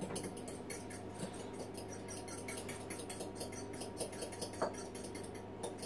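A fork beating an egg in a small cup: rapid, light tapping and scraping against the cup, with a few sharper clicks in the second half.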